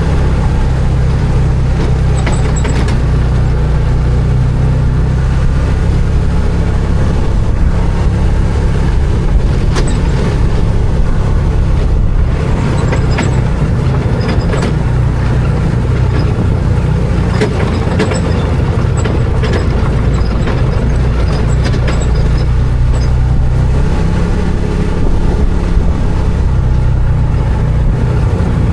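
Arctic Cat Wildcat 1000 side-by-side's V-twin engine running steadily, with scattered clicks and knocks over the engine noise.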